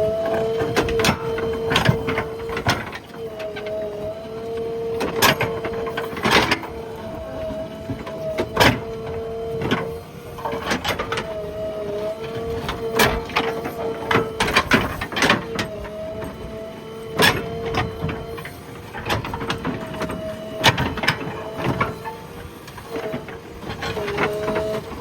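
JCB backhoe loader at work: a steady whine that steps up and down in pitch, broken by frequent sharp clanks and knocks.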